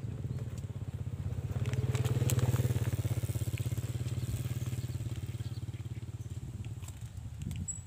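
A small engine running with a fast, even beat, swelling to its loudest about two seconds in and easing off after, with a few light clicks over it.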